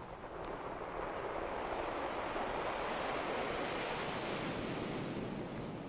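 Ocean surf: one wave swelling up as a broad hiss and washing in, then ebbing away.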